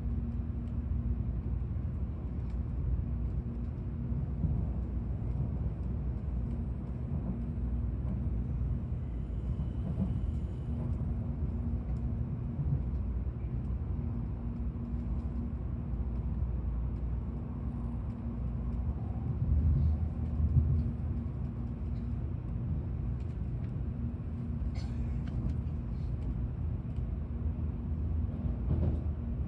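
Tokaido Shinkansen train running, heard inside the passenger car: a steady low rumble with a constant low hum over it.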